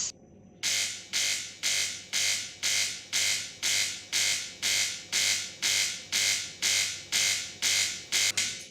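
De'Longhi Magnifica ESAM04 coffee machine's pump buzzing loudly in pulses, about two a second, each fading away, during the rinse cycle. The machine is pumping against an air blockage and delivers no water.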